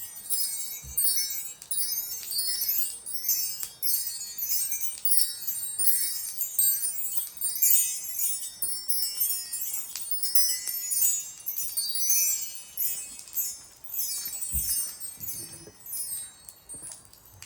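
Wind chimes ringing in dense, overlapping cascades of bright, high tinkling strikes, thinning out near the end. A soft low knock sounds about a second in and again near the end.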